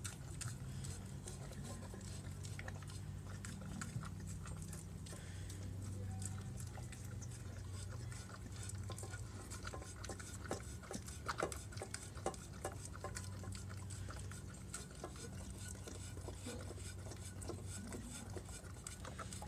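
A dog eating mac and cheese from a dish, with scattered light clicks and taps of tongue and teeth against the dish over a steady low hum.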